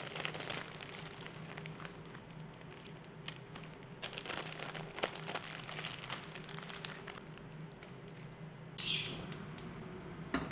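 Plastic instant-noodle packets crinkling and rustling as they are handled and the dry noodle block is taken out, with light clicks and taps, over a faint steady hum. Near the end, a brief hiss with a few clicks.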